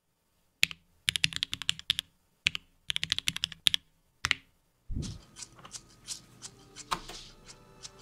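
Mechanical keyboard keystrokes in short runs of quick clacks mixed with single presses. About five seconds in, a low thump comes and background music starts.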